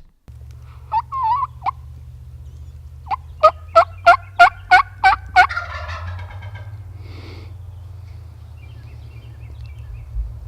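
Wild turkey calling: a few short notes about a second in, then a run of about seven loud, evenly spaced notes trailing off into a rattle. A low steady rumble lies underneath.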